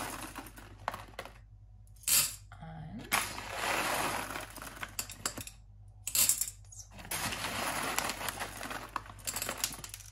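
Dry popcorn kernels poured into a stainless steel cooking pot, rattling and clattering onto the pot's bottom in several separate pours with short pauses between them.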